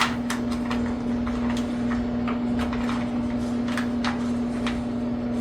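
Light scattered clicks and ticks of a water heater's leak-sensor wire and its plastic tube being coiled up by hand inside the lower access compartment, over a steady low hum.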